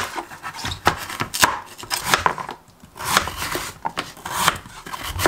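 Kitchen knife slicing through a raw Korean radish and knocking on a plastic cutting board, unhurried cuts about one a second.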